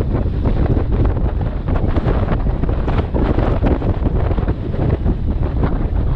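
Strong wind buffeting the microphone in irregular gusts, on a small open boat running through choppy sea.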